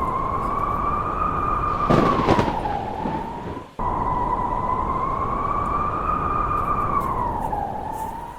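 Howling blizzard wind: a whistling howl wavering slowly around one pitch over a rush of noise, with a loud gust about two seconds in. It breaks off abruptly just before the four-second mark and starts again at once.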